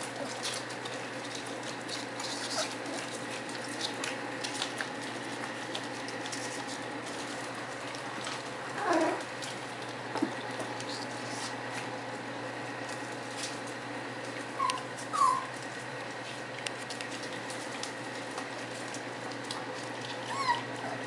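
Puppies giving a few short, high whimpers: one falling whine about nine seconds in, two quick ones around fifteen seconds, and another falling whine near the end, with small clicks and rustles as they move about.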